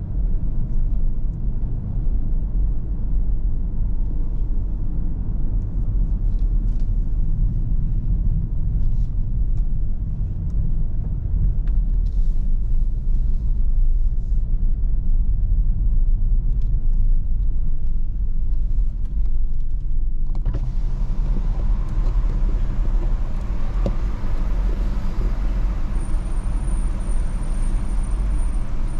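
A BMW car's engine and road noise heard from inside the cabin, a steady low rumble while it drives slowly. About two-thirds in the sound opens up and brightens with more outside noise, and a thin, steady high whine comes in near the end.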